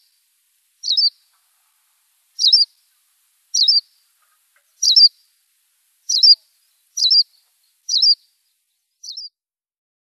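Berthelot's pipit calling: eight short, sharp, high chirps, about one a second, the last one fainter.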